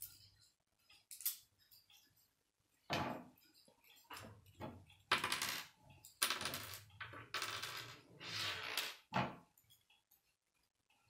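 K'nex plastic rods and connectors clicking and clattering as they are handled, picked up and snapped together on a wooden tabletop. A few sharp clicks come first, then a busy run of clatters and handling noise from about three seconds in, ending with one last click.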